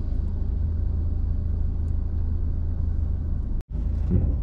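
Steady low rumble of a motor vehicle heard from inside its cabin: engine and road noise. It breaks off for an instant about three and a half seconds in.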